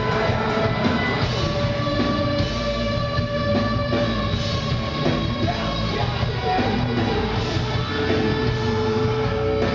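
Heavy rock band playing live: guitars, bass and drums in a dense, steady mix.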